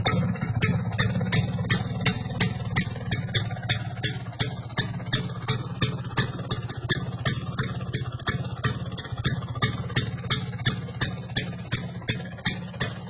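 Vespa PX scooter's two-stroke single-cylinder engine idling slowly and evenly, with sharp regular ticks about three times a second over a steady low hum.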